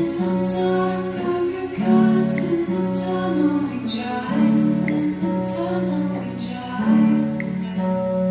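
Background music: sustained low notes that change about every second or two under higher melody lines, with sharp strummed or struck accents roughly once a second.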